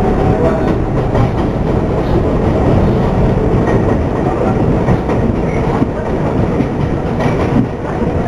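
New York City subway 7 train running at speed on elevated track, heard from inside the car: a steady loud rumble of wheels and running gear with the clickety-clack of the wheels over the rail joints.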